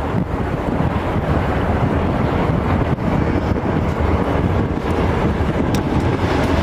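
Two CN diesel-electric freight locomotives rumbling low as they pull a freight train out, slowly growing a little louder as they draw nearer, with wind buffeting the microphone.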